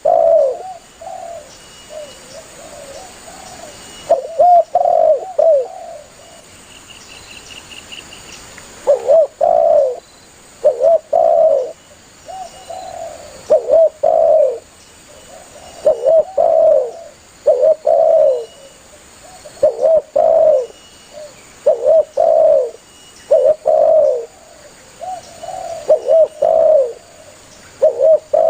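Spotted dove cooing over and over in short phrases of two or three coos, with two short lulls in the first half and then a phrase every second or two.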